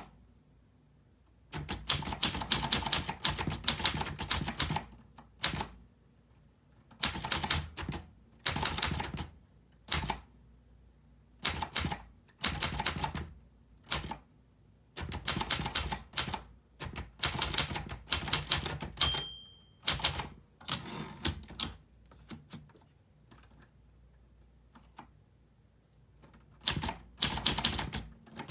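Clover English typewriter being typed on: quick runs of sharp key strikes in bursts of a few seconds, with short pauses between them. A single short ring sounds about two-thirds of the way through.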